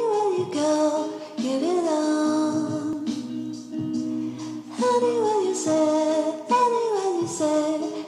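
Background music with a sung melody in short phrases that slide down in pitch.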